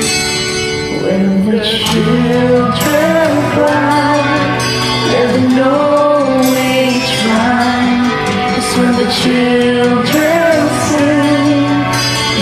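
Karaoke singing over a recorded backing track: a solo voice carries a slow ballad melody above sustained accompaniment chords.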